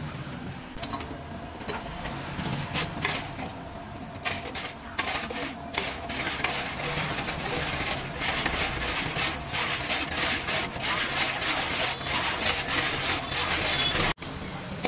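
Sugar syrup heating in a large aluminium pot on a gas burner, stirred with a long metal ladle that scrapes against the pot, with bubbling and a steady low burner roar underneath. The scraping and bubbling grow denser from about four seconds in.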